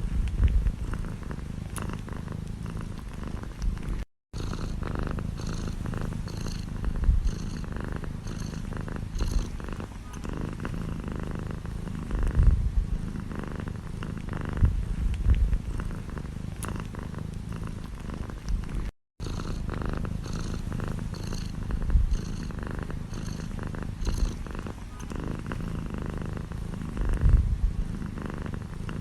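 Domestic cat purring steadily up close, a low continuous rumble with occasional soft low bumps. Twice it cuts out for a split second.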